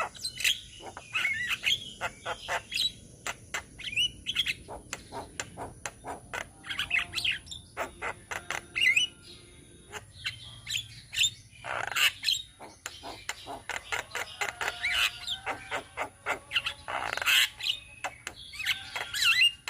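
A flock of Javan mynas (jalak kebo) calling together: a busy, irregular mix of sharp clicks, chatter and short whistled notes.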